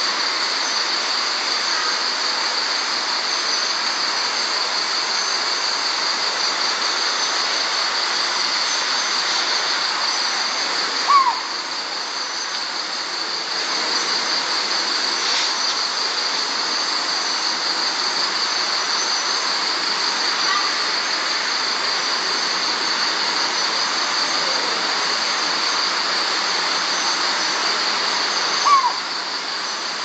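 Steady night chorus of crickets, a high continuous trill. Over it, two short single-note calls about eighteen seconds apart, one about a third of the way in and one near the end, from a collared scops owl.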